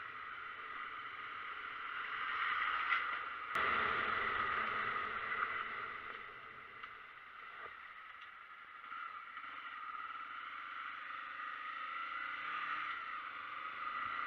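A vehicle running along a road: a steady noise with a constant whine, swelling and easing a little, and one sharp knock about three and a half seconds in.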